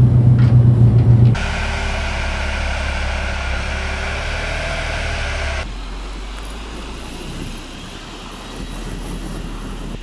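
Mercedes-Benz Arocs tipper truck's diesel engine running, cut together from several shots: a loud steady drone for about the first second, then a higher whining sound until just past halfway, then a quieter low rumble that fades toward the end.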